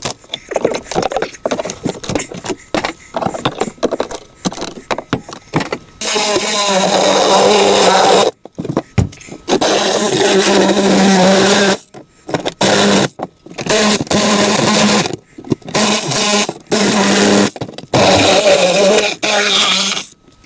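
Knocks and scrapes of rotten flooring and debris being pried and pulled out, then a cordless drill run against the plywood floor in repeated bursts of one to two seconds, a steady motor hum with grinding wood noise.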